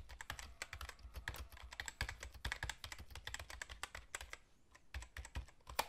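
Typing sound effect: a quick, irregular run of faint computer keyboard keystroke clicks.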